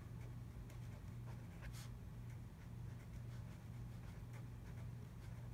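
Pen writing on notebook paper: faint, short scratching strokes as a word is written out by hand, over a low steady hum.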